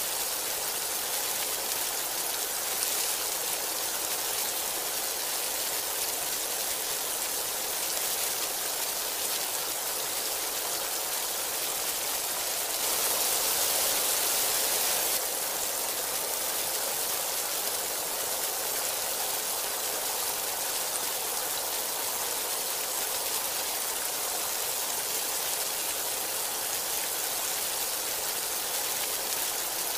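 Heavy rain falling steadily, an even dense hiss, swelling louder for a couple of seconds about halfway through.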